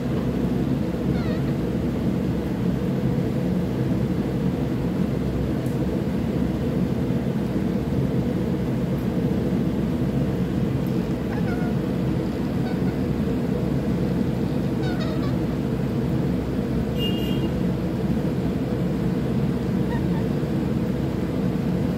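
A rose-ringed parakeet gives a few faint, short falling chirps and one brief, higher call about two-thirds of the way through. Under them runs a loud, steady low noise.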